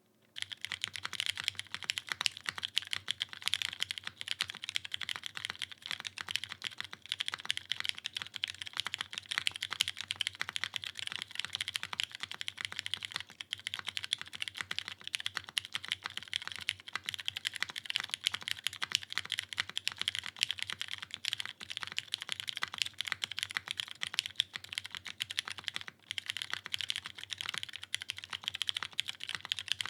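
Continuous fast typing on a Geonworks F1-8X mechanical keyboard with broken-in, stem-lubed Cherry Hyperglide Brown tactile switches, a 1 mm aluminium plate on a Viton gasket mount and GMK keycaps: a dense run of keystroke clacks with a brief pause near the end.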